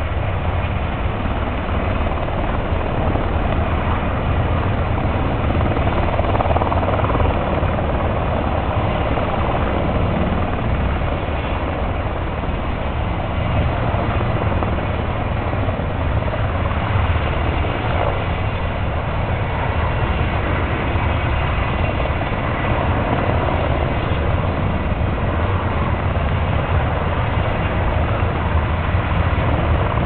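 Fire attack helicopter hovering low over its reload tank, taking on slurry, with a steady loud rotor and engine noise.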